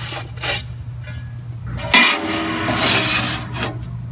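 Sheet metal scraping and rubbing as it slides across a shear's steel bed, under a steady low machine hum. About two seconds in, a sharp clank starts a louder, grating scrape that lasts almost two seconds.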